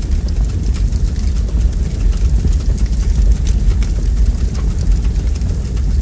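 Wood logs burning in a fireplace: a steady low rumble of the flames with frequent small crackles and pops.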